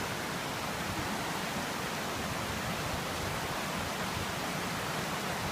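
Steady rushing water: an even hiss that holds at one level without breaks.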